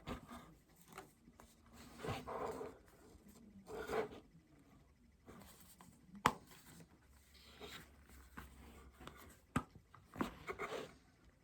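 Unboxing handling sounds: packaging being rustled and moved in short bursts, with two sharp clicks.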